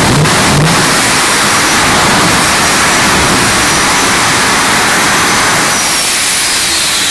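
Jet truck's jet engine running: a loud, steady rushing noise with a high whistle that starts to fall in pitch about six seconds in.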